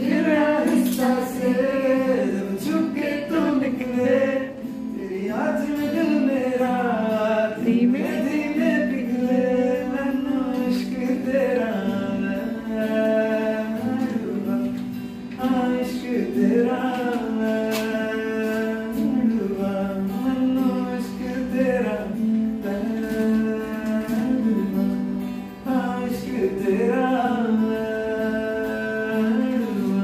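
A man singing a melodic song while strumming an acoustic guitar.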